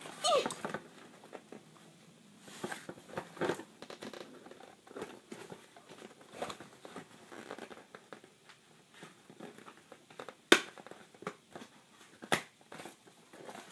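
Cardboard toy box and packaging being torn and pulled apart by hand: rustling, crinkling and scattered clicks as the toy is worked loose from its insert, with two sharp snaps near the end.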